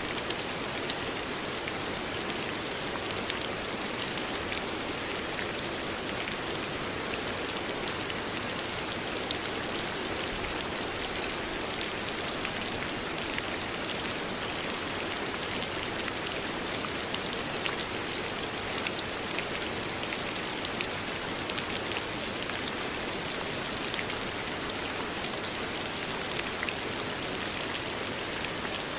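Steady rain falling, a constant hiss with many small drops ticking on a surface.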